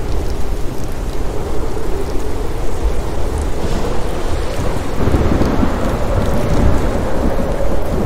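Steady rain falling, with a low rumble of thunder building about five seconds in.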